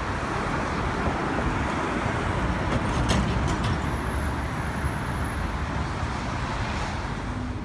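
Steady road traffic noise on a downtown city street.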